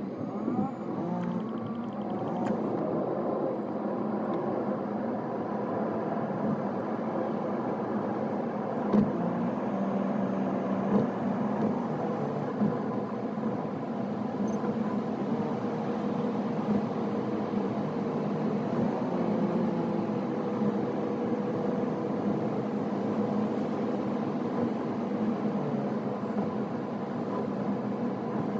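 Car driving noise heard from inside the cabin: a steady mix of road and engine noise, which gets louder at the very start and then holds even.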